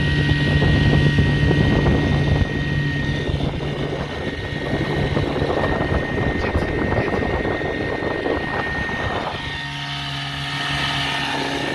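Veterok-8 two-stroke outboard motor, fitted with a Stihl MS 660 chainsaw carburettor, running steadily at full throttle while pushing an inflatable boat. A rushing noise lies over the engine and eases about nine and a half seconds in, leaving the engine's steady tone clearer.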